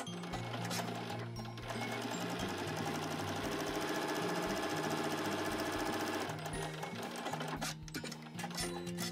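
Janome electric sewing machine stitching a seam, the needle running fast and evenly for about five seconds before it stops. Soft background music plays throughout.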